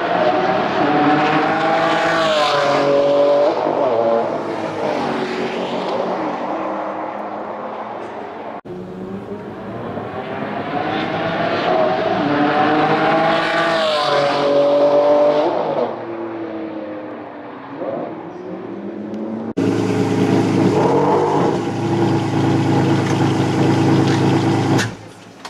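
Ferrari Enzo's 6.0-litre V12 accelerating hard down a race-track straight twice, its note climbing and then falling away as it passes. Then the V12 idling steadily close behind the car.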